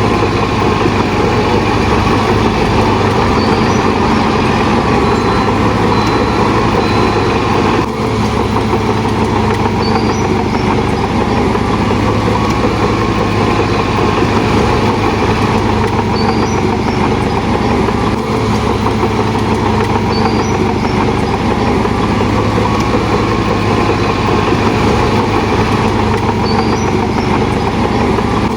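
Shantui DH17 bulldozer's diesel engine running steadily, with brief dips about eight seconds in and again near eighteen seconds.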